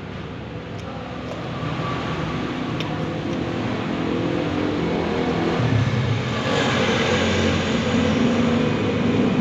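A motor vehicle's engine passing close by, growing steadily louder over several seconds and loudest in the last few seconds.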